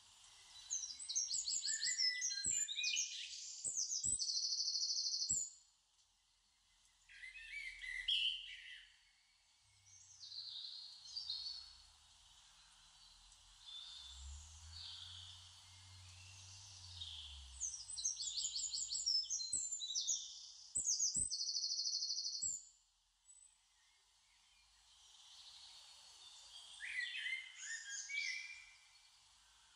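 Birdsong from a background nature-sound track: bursts of quick chirps and trills, with the same passage repeating about eighteen seconds later.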